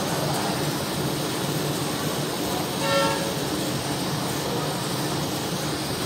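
Handheld butane gas torch burning with a steady hiss as its blue flame scorches a plywood surface. A short horn-like toot sounds about halfway through.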